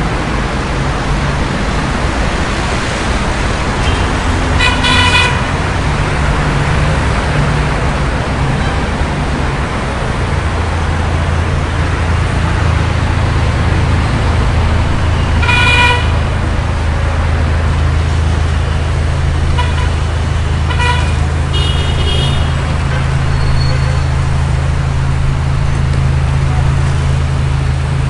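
City street traffic: a continuous rumble of engines and tyres with a low engine drone that settles into a steady hum about halfway through. Car horns sound over it, one honk about five seconds in, another a little past halfway, and a few shorter toots soon after.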